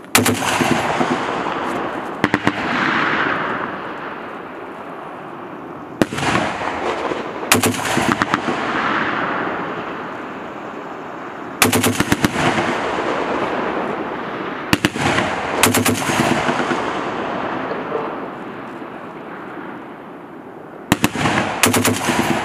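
M2 .50 caliber heavy machine gun firing about nine short bursts of a few rounds each, spaced irregularly a second to several seconds apart, with a long rolling echo trailing each burst.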